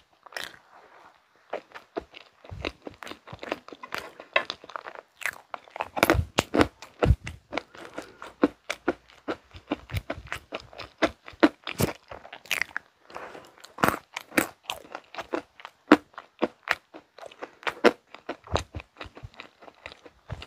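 Close-miked eating: a person biting and chewing mint chocolate desserts and a mint chocolate candy, with a dense run of sharp crunches after a brief pause about a second in.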